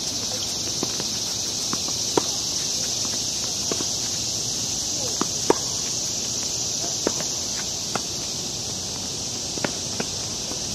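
Tennis rally on a hard court: sharp pops of racket strings striking the ball and of ball bounces every second or two, the loudest about two seconds and five and a half seconds in, with lighter scuffs of players' shoes. Behind it runs a steady high hiss of insects.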